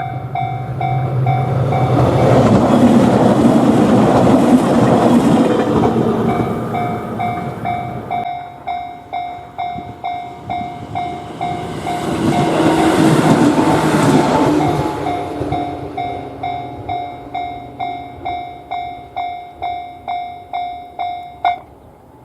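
Japanese level-crossing electronic warning bell ringing a steady kan-kan, about two strikes a second, while trains run past twice, each passing the loudest part. The bell stops abruptly near the end.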